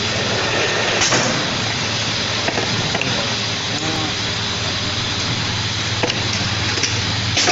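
Spiral paper tube winding machine running steadily, its motors giving a constant hum under a mechanical whir, with a few sharp clicks about a second in, near the middle and near the end.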